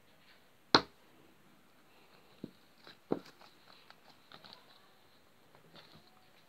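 Purple slime being handled: one sharp click under a second in, then two smaller pops and a few faint ticks.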